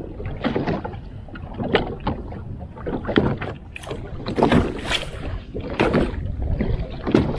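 Water slapping against a boat's hull in irregular splashes, over a steady low rumble of wind on the microphone.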